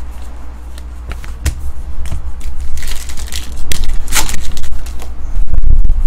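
Trading cards being flipped through and a foil trading-card pack wrapper crinkling in the hands: irregular clicks and short rustles, the loudest about three and four seconds in, over a steady low hum.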